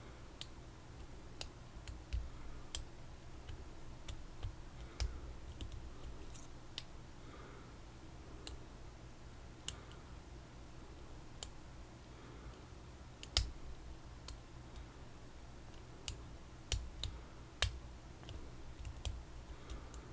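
Picking a PacLock 90A Pro padlock: small, irregular metallic clicks and ticks from the pick and tension wrench working the pins in the keyway, with a few sharper clicks in the second half.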